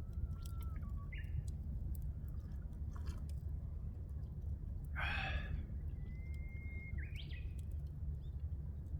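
Japanese bush warbler singing two phrases, each a long held whistle that breaks into a quick, higher flourish: one near the start and one about six seconds in. About five seconds in, a louder harsh, noisy burst lasts about half a second, over scattered sharp clicks and a steady low rumble.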